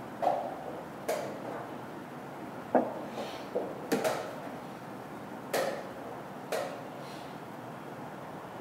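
Wooden chess pieces being set down on a wooden board and a chess clock's buttons being pressed: about seven short, sharp clacks at an uneven, quick pace, typical of blitz play.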